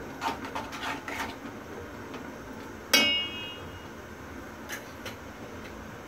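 Metal spoon clinking and scraping against an aluminium pot of melting butter, several light clicks, then one sharp metallic clang with a short ringing tone about three seconds in, followed by a couple of faint ticks.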